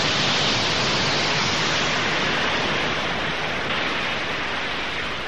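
Steady hiss of vapour jetting into a glass stage-illusion cabinet, easing off slightly toward the end.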